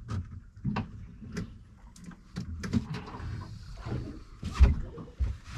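Irregular knocks, clunks and short clatters of things being handled on a small boat's deck and fittings.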